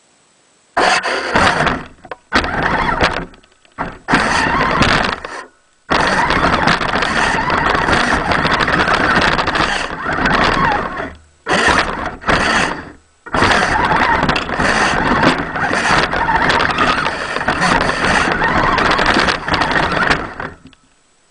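Radio-controlled 4WD truck driving through snow in stop-and-go bursts of throttle, its drivetrain and tyres in the snow heard through the waterproof camera housing mounted on its front. There are about eight bursts, the two longest running about five and seven seconds.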